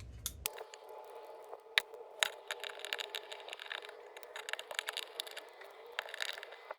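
Small clicks and scraping of hand tools and small metal parts as a chainsaw carburetor is taken apart, over a faint steady hiss.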